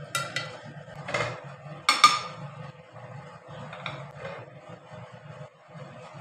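A metal spoon knocking and scraping against a metal cooking pot and a plate while scooping out cooked rice: a few sharp clinks, the loudest about two seconds in, over a low steady hum.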